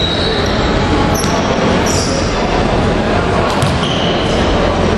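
Basketball gym ambience during a game: steady, loud noise of the hall with voices in it, and a few short, high sneaker squeaks on the hardwood court.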